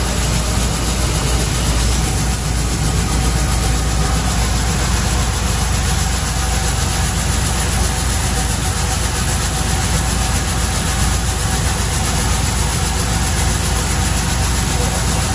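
Coin-operated rice-polishing machine running with a steady motor hum as rice grains stream through it and pour into a paper bag.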